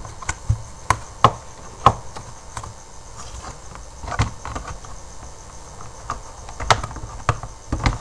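Irregular sharp clicks and taps, about ten in all, from hands plugging wire connectors into an induction cooker's circuit board and handling its plastic casing and coil.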